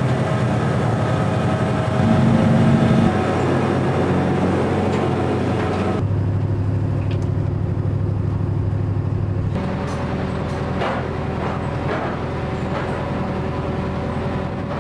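A trawler's engine running with a steady low drone. Its tone and loudness change abruptly about six seconds in and again near ten seconds, and a few faint knocks come near the end.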